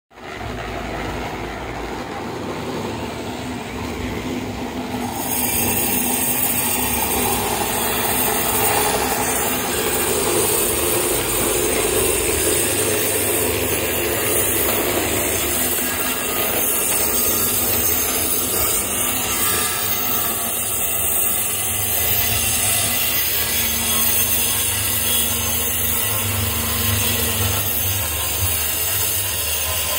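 Construction-site machinery running: a steady mechanical din that gets louder and brighter about five seconds in.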